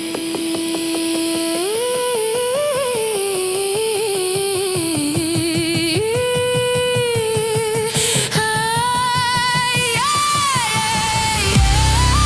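Electronic folk-style music: a wordless sung melody with held, wavering notes over a quick rhythmic backing. A heavy bass comes in near the end as the track builds into a drop.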